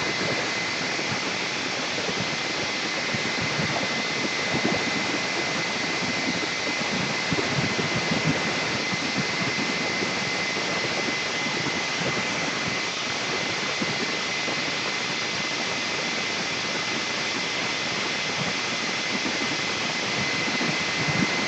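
Handheld hair dryer blowing steadily: a rushing air noise with a thin, steady whine. It is drying a freshly sprayed coat of leather dye.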